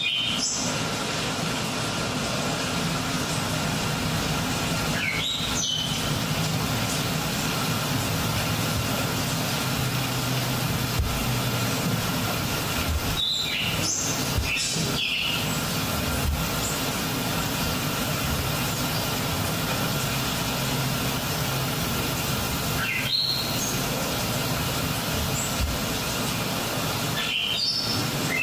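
Steady rushing noise, a low rumble with hiss, from the dance piece's soundtrack, with a short high chirp every several seconds.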